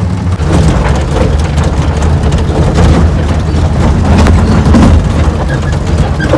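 A goods vehicle's engine running steadily, loud and close, with a low, even drone.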